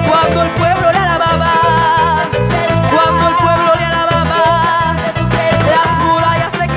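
Live Christian worship song: women singing into microphones over a band with keyboard, drums and a steady low beat, the lead voice wavering with vibrato.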